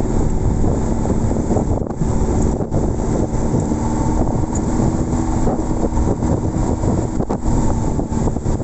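Jeep Willys engine running as the vehicle drives along, a steady drone under a dense low rumble of wind and road noise on the microphone.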